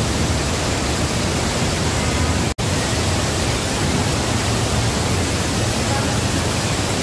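Waterfall rushing, a loud, steady, dense roar of falling water that cuts out for an instant about two and a half seconds in.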